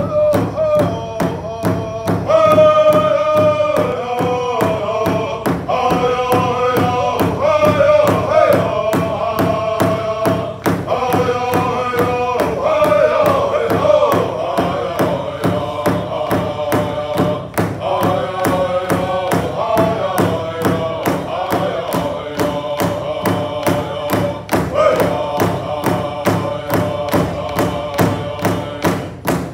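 Powwow drum group: several men singing together in high voices while striking a large shared hide drum with sticks in a steady, even beat.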